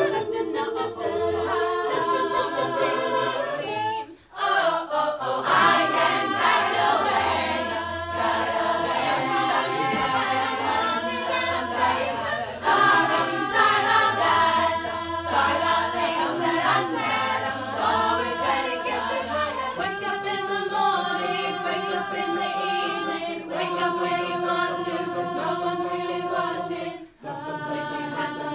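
Mixed-voice a cappella group singing in close harmony, with a low bass line underneath. The singing breaks off briefly twice, about four seconds in and near the end.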